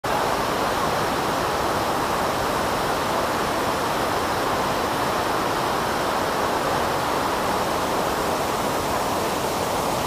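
Gullfoss, the large two-tiered waterfall on the Hvítá river, giving a steady, even rush of falling water with no breaks.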